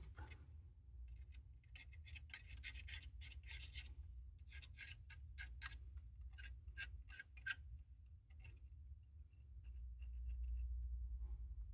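Back of an X-Acto knife scraping degraded mirror-damping foam off a Nikon F3's mirror box: faint, quick scraping strokes in two runs, then a few lighter scrapes near the end.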